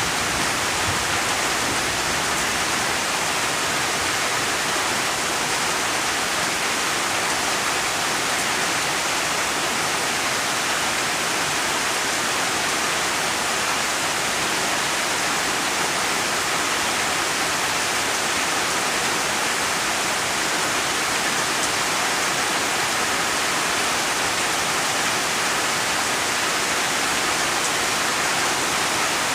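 Steady rain: an even, unbroken hiss of falling drops with no individual drips standing out.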